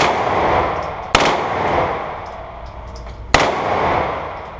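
Three gunshots, the second about a second after the first and the third about two seconds after that. Each is a sharp crack followed by a long fading echo.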